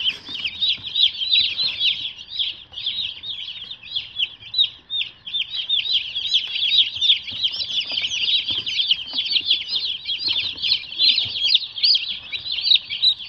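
A flock of young meat chicks peeping constantly, with many short, shrill peeps overlapping into one unbroken chorus.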